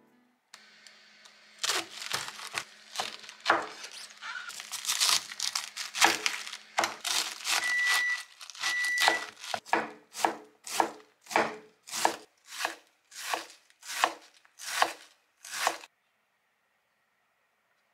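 Kitchen knife cutting through a cabbage on a wooden cutting board: crunchy slicing and tearing of the leaves, then a run of regular chops, about one and a half a second, as it is shredded. The chopping stops shortly before the end.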